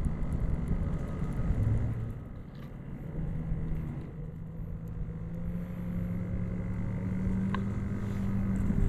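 Wind rumbling on the microphone over a steady, low engine drone.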